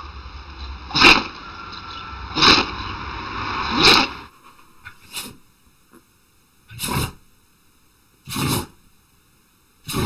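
A dog sneezing, a sharp sneeze about every one and a half seconds, three times. Then, after a cut, a chocolate Labrador sneezing at the same pace, each sneeze softer than the first dog's.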